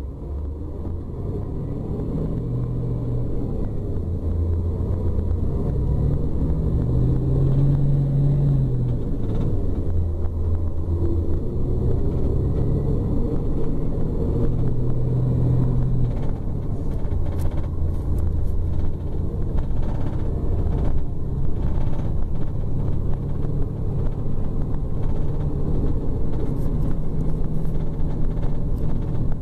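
Scania K410 coach's rear-mounted six-cylinder diesel engine running as the bus drives, its pitch rising and falling with throttle. The sound fades in at the start, and a few light clicks come past the middle.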